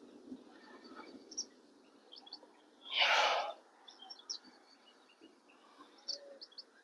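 Small birds chirping in short, scattered calls, with one brief breathy rush of noise about three seconds in.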